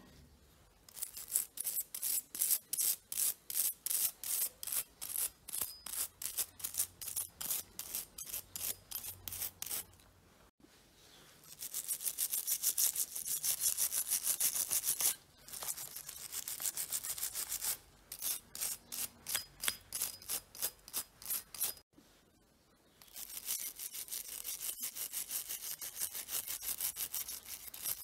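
Stiff-bristled brush scrubbing a small wet metal part. It goes in rhythmic back-and-forth strokes of about two a second, broken by stretches of fast, continuous hissing scrubbing and a couple of short pauses.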